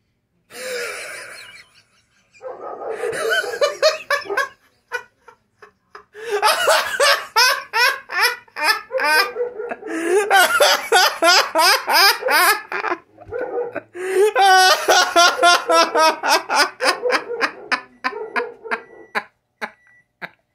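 A man's loud, drawn-out belly laughter, in long runs of rapid ha-ha pulses with short breaks for breath.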